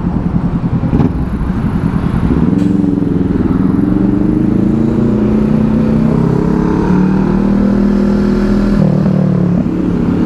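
Yamaha NMAX scooter's single-cylinder engine pulling away, its pitch rising over several seconds, then holding and easing off near the end, with wind and traffic noise.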